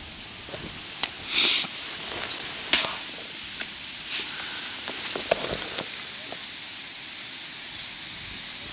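Wind on the microphone, with a sharp click about a second in and a few short swishing hisses as a pole rod's float rig is cast out onto the water.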